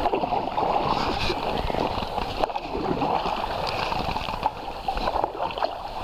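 Kayak paddle strokes in calm river water from an inflatable tandem kayak: a steady run of splashing and dripping as the blades dip and pull.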